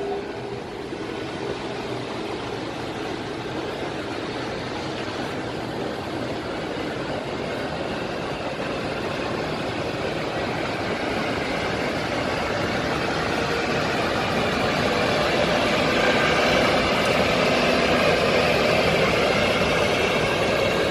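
Siemens Vectron electric locomotive moving slowly at the head of a passenger train, its running noise of cooling blowers and traction equipment growing steadily louder as it draws near and comes alongside.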